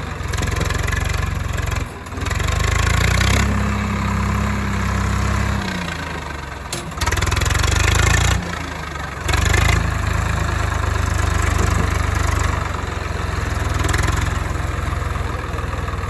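Swaraj 744 FE tractor's diesel engine working under heavy load as it hauls a loaded trailer. The revs rise about three seconds in and fall back a few seconds later, with brief dips near the middle.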